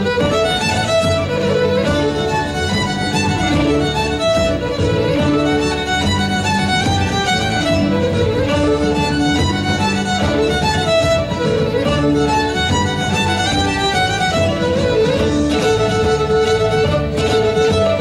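Fiddle playing a lively Irish traditional dance tune in a continuous run of quick notes, with accompaniment underneath.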